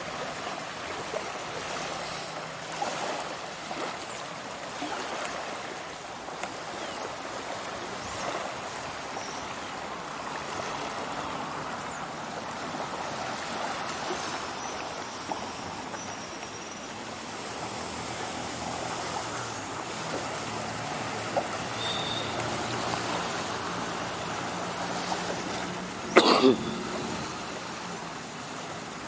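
Small sea waves lapping and washing on a sandy shore, a steady rushing wash. Near the end, a brief loud knock comes twice in quick succession.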